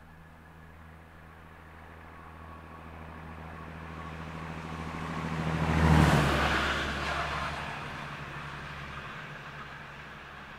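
Uerdinger railbus (DB VT 798) passing by, its underfloor diesel engine droning with the low hum that gave it the nickname 'Roter Brummer' (red hummer). The drone grows steadily louder as it approaches and peaks about six seconds in with a rush of wheel and wind noise, then drops in pitch and fades as it runs away.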